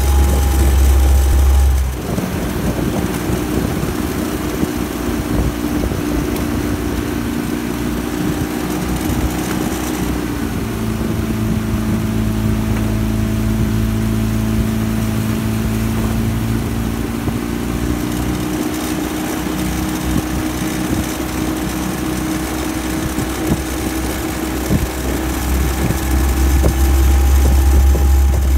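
Motorboat outboard engine running steadily at moderate speed, its pitch shifting a little a few times. A heavy low rumble sits under it in the first two seconds and again near the end.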